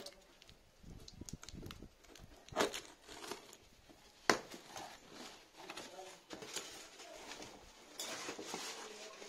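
Cardboard packaging being handled: a box cutter scraping through cardboard, then flaps pulled apart and an inner box slid out. Irregular rustles and scrapes, with a loud swish between two and three seconds in and a sharp click about four seconds in.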